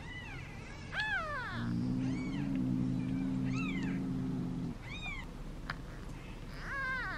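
Newborn kittens mewing: about six short, high-pitched mews, each rising then falling, spaced roughly a second apart.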